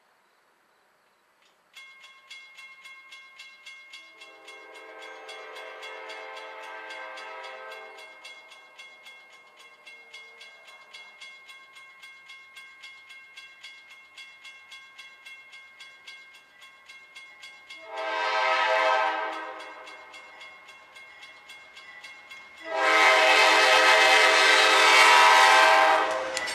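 Grade-crossing warning bell starts ringing about two seconds in and keeps a steady pace of about three dings a second. Over it, the horn of an approaching CSX C40-8 freight locomotive sounds the crossing signal: first a fainter long blast, then a short loud blast, then a long loud blast as the locomotive reaches the crossing.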